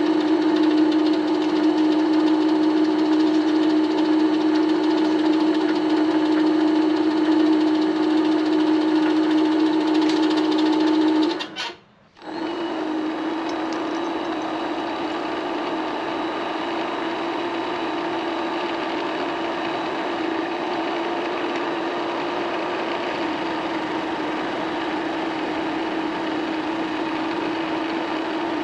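Vevor MX400 mini lathe running steadily with a whine while turning down a hard steel bar, with a brief dropout about twelve seconds in, after which it sounds a little rougher.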